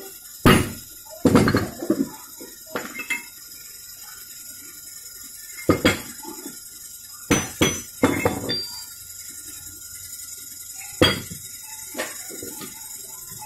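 Irregular sharp metal knocks and clinks, about a dozen, of a steel bar and motorcycle crankshaft parts striking against each other, some ringing briefly.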